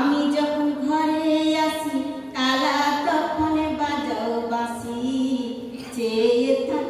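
A single high voice singing a melodic line without accompaniment, holding long notes, with a brief breath between phrases a little over two seconds in.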